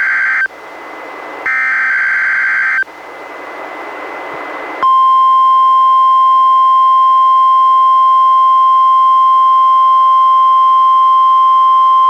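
NOAA Weather Radio SAME digital header bursts, received on a Reecom R-1630 weather radio: the end of one buzzy data burst, then another about a second and a half in, with rising radio hiss in the gaps. About five seconds in, the steady 1050 Hz NWR warning alarm tone starts and holds.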